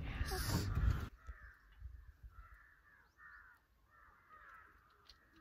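Loud noise in the first second cuts off suddenly, followed by faint crows cawing several times.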